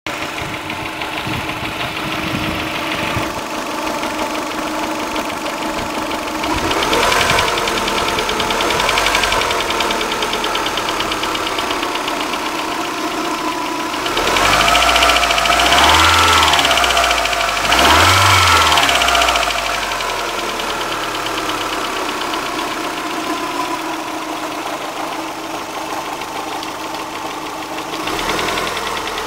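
Toyota 3S-GE twin-cam four-cylinder engine idling and being revved several times, twice hard near the middle, with a knock that is the sign of a mechanical fault.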